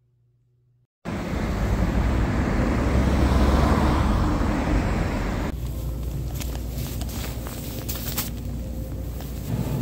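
Road traffic noise with a low rumble, steady and loud, starting suddenly about a second in. About five seconds in it gives way to quieter shop background noise with short clicks and rustles as groceries are handled in a plastic shopping basket.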